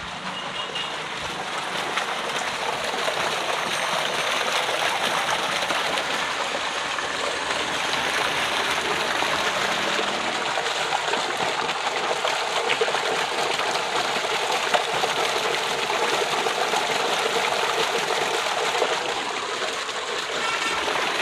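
Water gushing from a tubewell's outlet pipe into a concrete tank: a steady splashing rush that grows louder over the first few seconds as it is approached, then holds.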